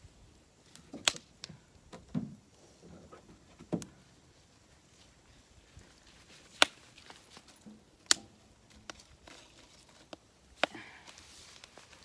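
Firewood being handled on a campfire: about half a dozen sharp wooden cracks and dull knocks, spaced irregularly a second or more apart.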